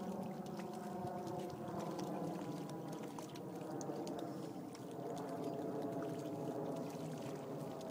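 A dog wading and splashing through shallow pond water, over a steady hum.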